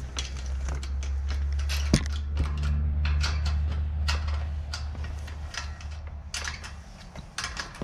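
Ratchet wrench clicking in short irregular runs as a bolt on the metal gate's hardware is tightened, with one sharper metal click about two seconds in.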